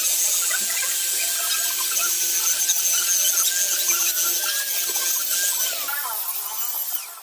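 Corded electric drill spinning a wire brush against a motorcycle's steel muffler, scrubbing off rust and dirt: a steady motor whine over a scratching hiss. About six seconds in, the whine falls as the drill winds down.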